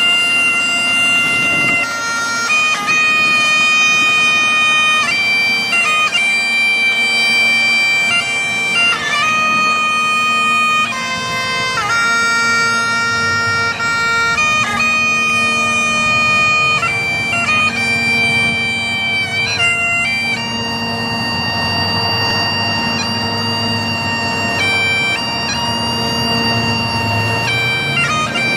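A bagpipe playing a slow melody of held notes over its steady drones.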